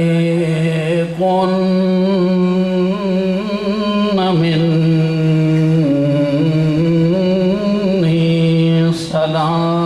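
A man chanting into a microphone in long, slow held notes whose pitch wavers. This is the chanted style of a Shia mourning elegy. The line breaks off briefly about a second in, about four seconds in, and near the end.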